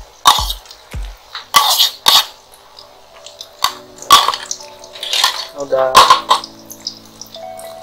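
Metal spoon tapping and scraping against a ceramic bowl as batter is scooped out into a wok. Quick taps about twice a second at first, then scattered sharp clinks and scrapes. Faint background music joins about halfway through.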